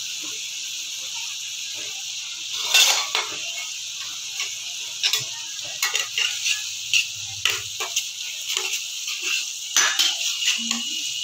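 Thick spice masala sizzling in oil in a kadai while a metal spatula stirs it, scraping and knocking against the pan again and again. The paste is being fried down after cumin powder went in, and the oil has already begun to separate.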